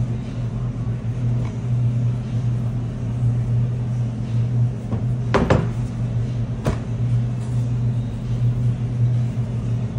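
Steady low hum of commercial kitchen machinery. A sharp double knock comes about five and a half seconds in and another about a second later, a wooden rolling pin knocking on the stainless steel bench.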